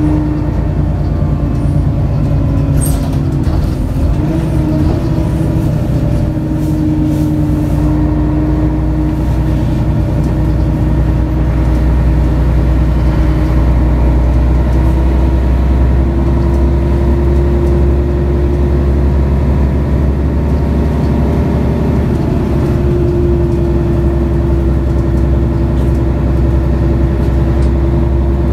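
Mercedes-Benz O530 Citaro city bus under way, its OM457hLA diesel engine and ZF automatic gearbox running steadily as heard from inside the passenger cabin. The engine note steps up in pitch twice, about a third of the way in and again near the end, with a short click about three seconds in.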